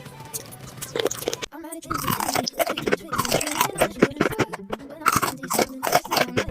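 A person biting and chewing crisp food close to the microphone: a quick run of sharp crunches, denser from about a second and a half in.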